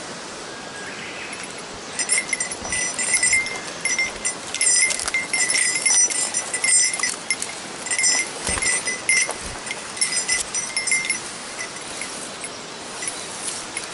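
A small metal bell jingling in irregular bursts of a second or two, over the steady rush of a mountain stream.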